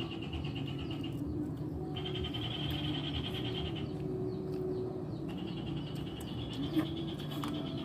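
Frogs calling: a rapid pulsing trill that stops twice and starts again, over a lower chorus of croaks. A single sharp click comes near the end.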